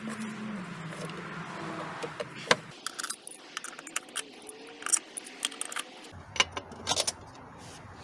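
Irregular metallic clinks and taps, starting about two and a half seconds in, from bolts and hand tools being handled while an upper intake manifold is set back onto a V6 engine.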